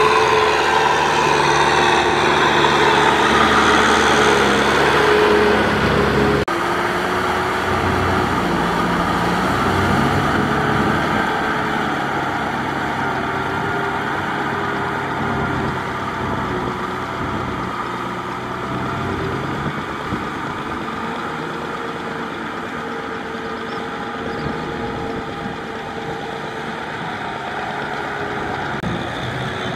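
Kubota M6040SU tractor's diesel engine running steadily as it drives a rear rotary tiller through a flooded rice paddy. The engine note shifts abruptly about six seconds in, then carries on a little quieter.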